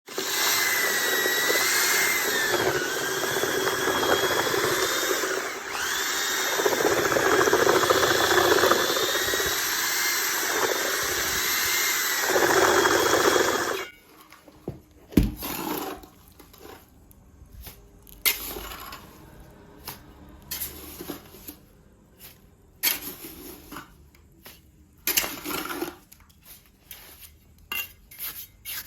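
A power tool runs for about fourteen seconds, its whine dipping and rising as it works under load, then stops. Scattered clicks, knocks and scraping of hand work on hard material follow.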